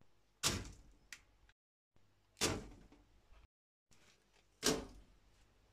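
Slices of bread set down one at a time on a parchment-lined metal baking tray: three short thuds about two seconds apart, with a dead silence between each.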